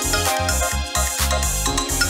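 Electronic dance music from a DJ set: a steady, repeating beat over heavy bass, with layered synth tones above.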